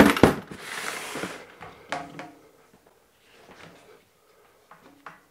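Hard plastic carrying case of a Parkside cordless reciprocating saw being shut and moved on a steel workbench: two sharp clacks of the lid, then about a second of plastic scraping over the metal, and a single knock about two seconds in.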